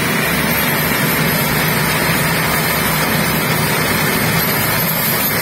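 Ford diesel tractor engines running hard at full load, a steady loud drone, as the tractors pull against each other in a tug-of-war.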